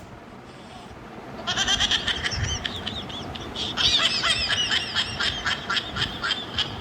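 A rapid run of short, high-pitched honking, squawking calls, starting about a second and a half in and going on without a break.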